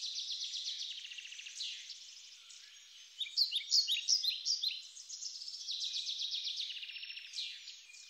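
Birdsong: small birds chirping and trilling rapidly in quick overlapping phrases, high and thin with no low sound underneath.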